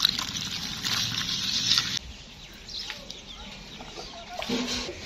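Water from a hose pouring into a plastic bucket of washing powder, stopping abruptly about two seconds in. It is followed by quieter sloshing as a hand stirs the soapy water in the bucket.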